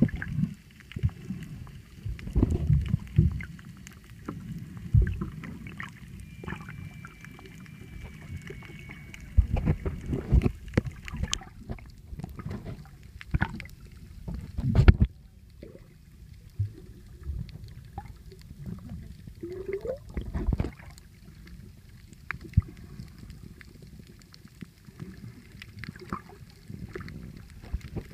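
Muffled sound of water moving around a submerged phone: irregular low sloshing and rumbling, with scattered clicks and knocks and a few louder surges.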